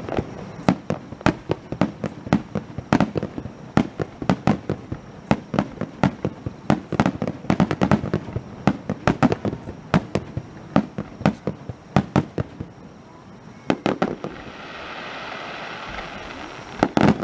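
Fireworks display: aerial shells bursting in rapid volleys of sharp bangs, several a second, easing into a brief lull about three-quarters of the way through before the bangs start again.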